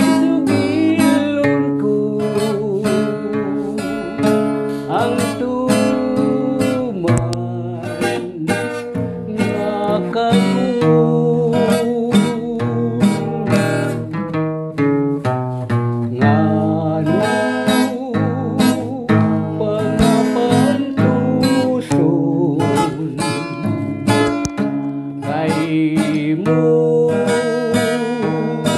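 Acoustic guitar strummed in a steady rhythm, accompanying a man singing a slow ballad, his held notes wavering with vibrato.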